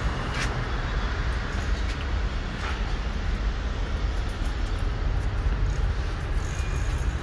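Steady street traffic noise: a continuous low rumble with an even hiss over it.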